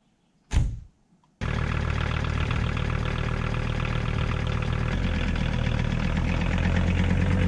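A van door slams shut once about half a second in. About a second later the Volkswagen T4 van's engine comes on abruptly and runs steadily, growing a little louder and deeper after about five seconds as the van pulls away.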